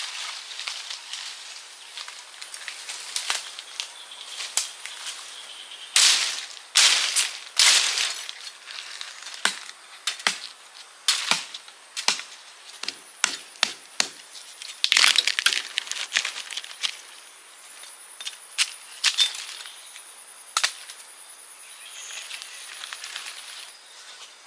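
Footsteps crunching through dry forest leaf litter, with twigs snapping in irregular clusters of sharp cracks.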